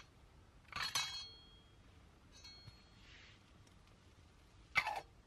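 A metal spoon clinking against a small camp cooking pot while food is stirred: a ringing clink about a second in, faint taps a little later, and another sharp clink near the end.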